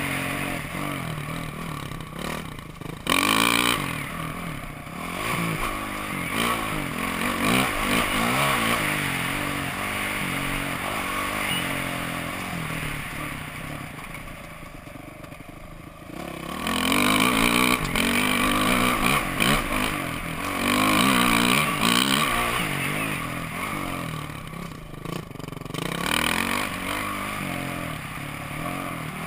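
Dirt bike engine revving up and falling back with the throttle while ridden over a rough, steep dirt track, heard from a helmet-mounted camera. The engine eases off and goes quieter around twelve to sixteen seconds in, then revs up hard again.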